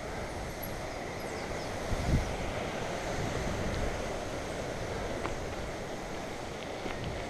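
Wind buffeting the microphone over the rumble of mountain bike tyres rolling on a dirt road, with a single jolt about two seconds in as the bike hits a bump.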